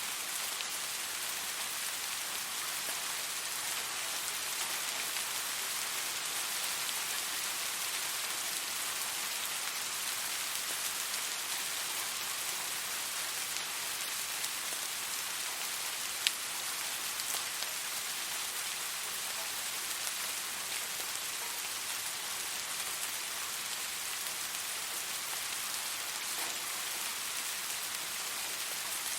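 Steady rain falling on a surface, an even hiss of drops, with one sharp tick about halfway through.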